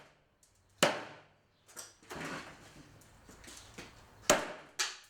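A plastic box fan, a Home Collection KYT-30, being struck hard, likely with a golf club. One sharp hit comes about a second in, a lighter knock follows shortly after, and two more hits come near the end in quick succession.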